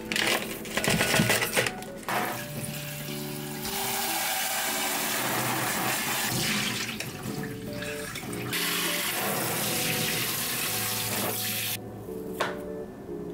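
Water running from a kitchen tap into a sink. It comes on about four seconds in, eases briefly near the middle and shuts off near the end, after a few clattering knocks at the start, with light background music throughout.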